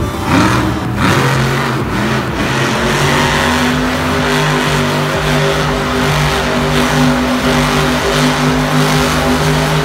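Scooby-Doo monster truck's engine revving hard while the truck spins donuts in dirt. The pitch swings in the first second, then holds at high revs.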